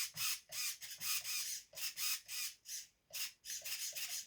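RC hobby servo on the throttle/brake channel buzzing in short repeated bursts, about three a second, as it is driven back and forth; the owner reckons something is not right with it.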